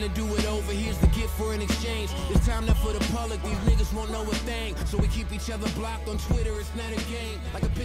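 Hip hop music with a rapped vocal over a heavy bass and kick-drum beat.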